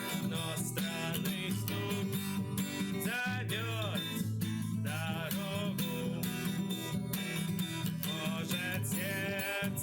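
Music: acoustic guitar strumming steady chords, with a melody line that rises and falls over it at times.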